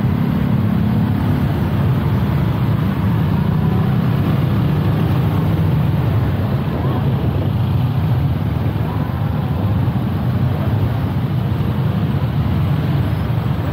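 Engines of a Honda PCX 150 scooter and the many motorcycles packed around it running at low revs, a steady low hum as the traffic crawls at walking pace.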